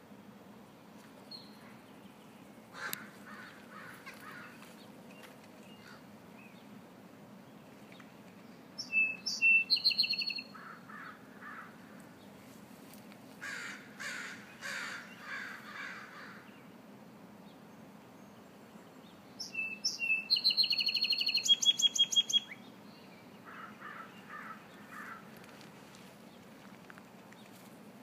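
A small songbird singing twice, each song a few short clear notes followed by a fast buzzy trill, with rougher, lower calls in between.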